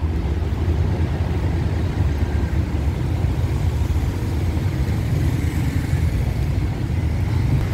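Steady traffic noise on a busy city road, with cars and motorcycles passing and a constant low rumble.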